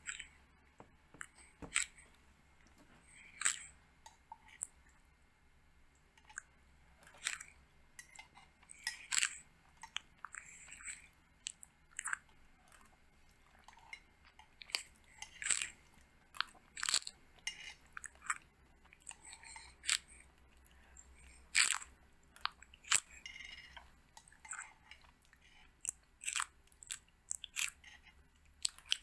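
Baby sulcata tortoises biting and crunching dry green food pellets: irregular sharp crunches and clicks, in clusters of several at a time.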